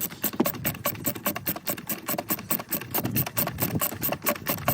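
Socket ratchet clicking quickly and evenly, about seven clicks a second, as it is worked back and forth to undo the 13mm battery hold-down bolt.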